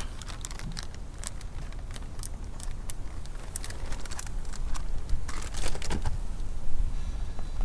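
Hands handling fishing tackle: a run of small plastic clicks and crinkles, thickest about five seconds in, as a soft-plastic bait is taken out of its package. A low wind rumble on the microphone lies under it.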